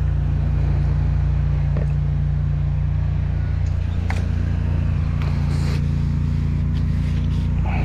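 High-pressure drain jetter's engine running at a steady pace, a constant low hum, with a few light clicks from the hose over it.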